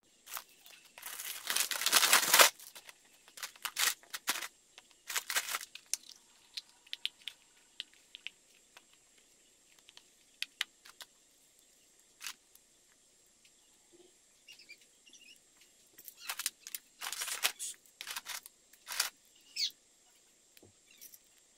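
A plastic bag crinkling loudly for about a second and a half near the start, then scattered crackles and clicks of LEGO Technic plastic parts being handled, pulled apart and dropped, with a second busy cluster about three quarters of the way through. The footage is sped up fivefold, so the handling sounds come quick and clipped.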